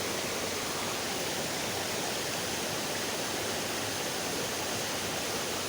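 Steady rushing of water flowing in a small, shallow stream.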